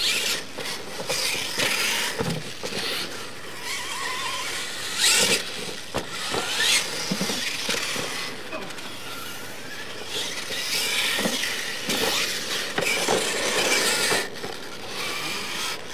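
Electric Losi LMT radio-controlled monster trucks racing on dirt: brushless motors whining up and down in pitch as they accelerate and slow, with the scrabble of tyres on loose dirt and a few sharp knocks, about six and twelve seconds in.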